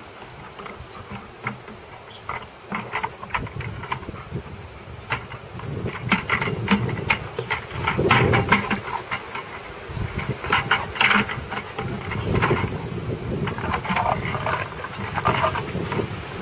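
A Labrador retriever playing with a plastic bucket: irregular knocks and scrapes as the bucket is carried, bumped and dragged over grass, with the dog panting. The knocking gets busier and louder about six seconds in.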